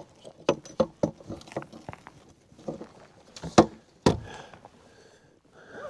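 Irregular knocks and clicks of gear being handled on a kayak, with the two loudest knocks about three and a half and four seconds in.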